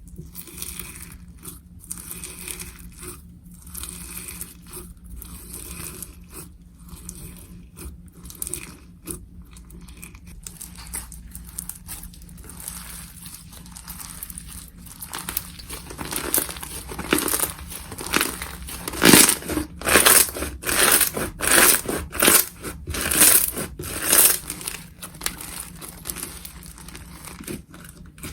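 Slime being squeezed and worked by hand, crackling and crinkling. About halfway through, louder squishes come in a steady rhythm, a little under two a second, then ease off near the end.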